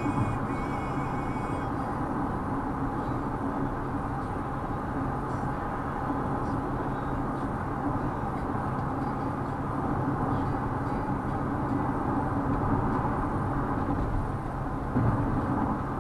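Steady road and engine noise inside a Mazda CX-5 cruising on a highway at about 105 km/h, with quieter background music underneath.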